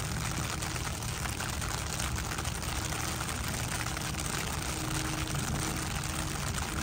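Steady rain falling, a dense even patter of drops on the water and the wet path, with a low rumble underneath.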